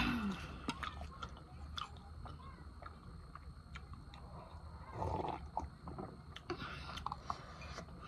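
A person chewing a mouthful of spicy ramen noodles, with soft scattered mouth clicks, and taking a drink from a mug about five seconds in.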